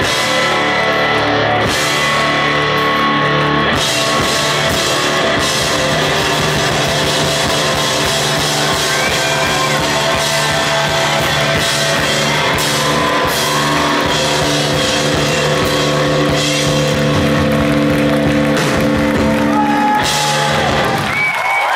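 Live rock band playing loud: electric guitars ringing out on long held notes over a drum kit with frequent cymbal crashes. The band stops abruptly near the end.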